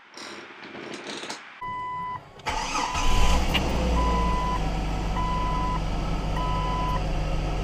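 1999 Jeep Cherokee engine cranking and catching about two and a half seconds in, then idling steadily. A single beep just before the crank, then a warning chime beeping about once a second over the idle.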